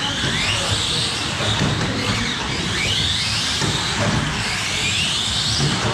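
Several 1/18-scale electric RC cars racing, their motors whining high, the pitch rising and falling every couple of seconds as they speed up down the straights and slow for the turns, over a low rumble of the cars on the track.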